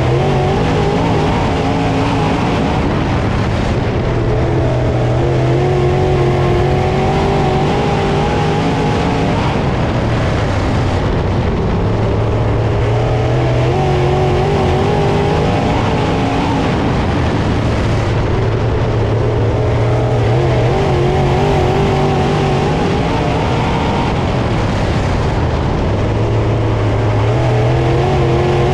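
Dirt late model's 604 crate small-block V8 racing at full throttle, heard from inside the car. The engine note falls and climbs again about every seven seconds as the driver lifts off and gets back on the throttle, with heavy road and wind rush over it.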